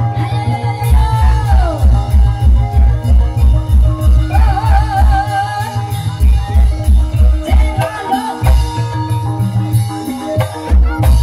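Banyumasan ebeg (kuda kepang) accompaniment music: a heavy low drum beat about three times a second under sustained melodic instruments, with a wavering sung line. The drum drops out twice for a second or two.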